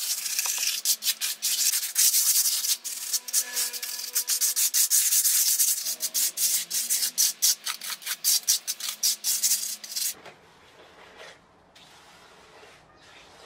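Plastering trowel scraping and smoothing wet cement-and-gravel mix in quick, scratchy strokes, laying a washed-aggregate floor. The scraping stops about ten seconds in, leaving faint background music.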